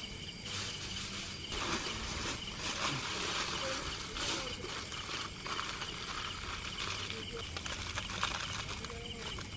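Aluminium foil and banana leaf crinkling and rustling in uneven handfuls as a large fish is wrapped up by hand for grilling.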